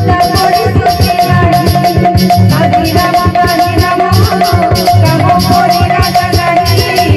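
Live bhajan music, loud and continuous: an electronic keyboard holding steady tones over a busy percussion rhythm with a rattling shaker.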